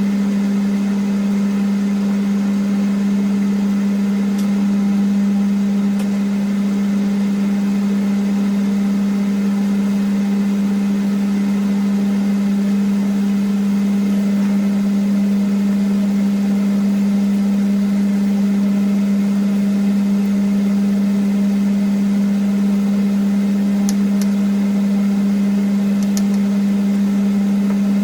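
Kitchen ventilation and cooker hood fans running at maximum: a loud, steady motor hum with an even rush of air. A few faint ticks come near the end.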